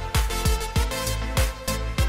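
Background music with a steady kick-drum beat, about one hit every 0.6 seconds, under a sustained melody.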